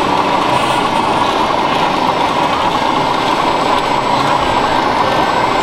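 Radio-controlled model tractor running, a steady engine-like drone with no breaks or sudden sounds.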